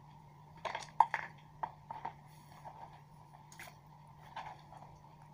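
A handful of light clicks and knocks from kitchen things being handled on a plastic cutting board, several close together about a second in, the loudest among them, and a few scattered after, over a faint steady hum.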